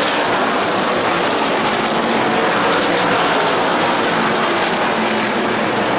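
NASCAR Craftsman Truck Series race trucks' V8 engines as a pack of trucks races past on the track, many engines running together in a steady, dense din.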